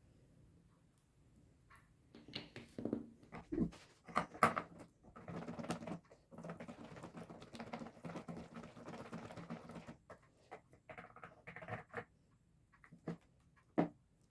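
Kitchen handling sounds: light knocks and clicks, with a few seconds of steady scratchy noise in the middle that stops suddenly.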